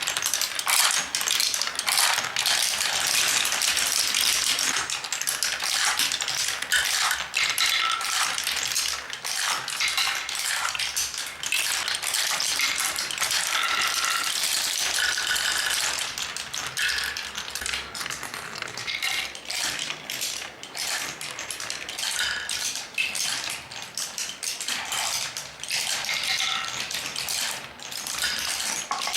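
Many glass marbles rolling and clattering through a Quadrilla wooden marble run: a dense stream of clicks and knocks on the wooden track, with short glassy clinks as the marbles strike each other. The clatter thins a little about halfway through.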